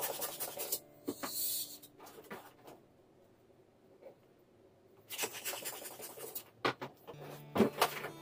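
Handheld balloon pump pushing air into a small latex balloon, with scratchy rubbing of the balloon rubber. It goes quiet for a couple of seconds midway, then more scratchy rubbing as the balloons are handled.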